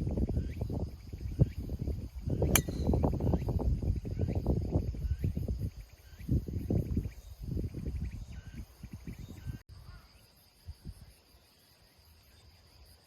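Gusty wind buffeting the microphone, with insects chirping steadily in the background. There is a single sharp click about two and a half seconds in, and the wind dies away for the last few seconds, leaving the insects.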